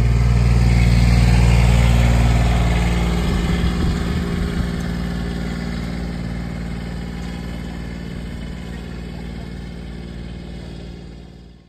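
John Deere Gator utility vehicle's engine running close by, a loud steady hum. About three seconds in it gives way to a lighter engine sound that fades steadily as the vehicle drives away.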